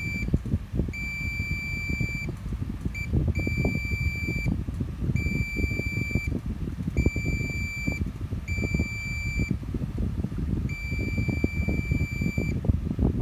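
Fluke digital multimeter's continuity beeper sounding in a string of steady high beeps, each about a second long, as the probes touch power-transistor legs on a CA20 amplifier board. The beep signals a near-short (readings around 0.6 Ω), the sign of dead output transistors.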